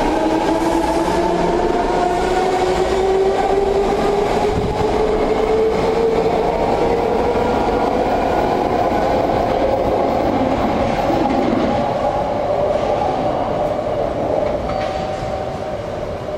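BART train pulling out of the station, its electric traction motors whining in several tones that climb steadily in pitch as it accelerates, over the rumble of wheels on rail. The sound fades over the last few seconds as the train draws away.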